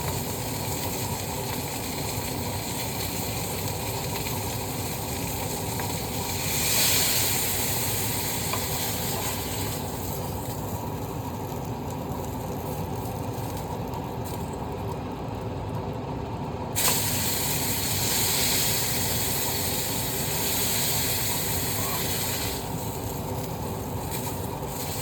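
Burgers sizzling as they fry in hot grease, a steady hiss that swells about seven seconds in, dies back, then flares again suddenly from about seventeen to twenty-two seconds in.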